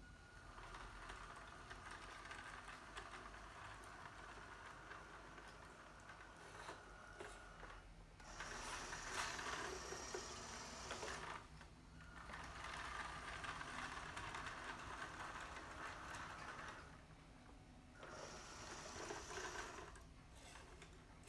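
Bruder model tractor converted to radio control, its small electric drive motor and plastic gearbox whirring as it drives and pulls a seed-drill model. It runs in several stretches with short stops, loudest about halfway through.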